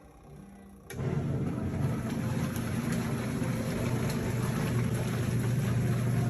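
Portable twin-tub washing machine starting up about a second in and running steadily: a low motor hum with a noisy churn over it.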